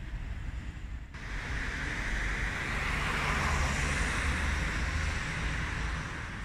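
Street traffic: a vehicle passing on the road, its tyre noise swelling to a peak about halfway through and then fading, over a low rumble of wind on the microphone.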